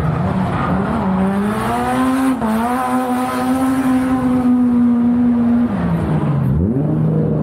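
Drift car's engine revving hard, climbing about a second in and held high for several seconds over tyre squeal. It lets off about six seconds in and picks up again near the end.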